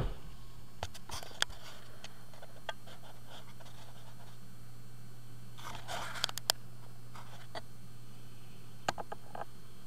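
Light handling noise: scattered sharp clicks and a brief rustle about six seconds in, over a steady low hum.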